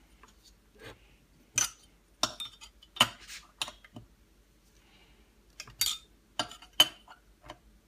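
Light metallic clinks and taps of a long Allen wrench on the steel screws and cylinder of a Husqvarna 181 chainsaw as the cylinder screws are tightened, a few sharp clicks spread irregularly, the loudest about three seconds in and near the end.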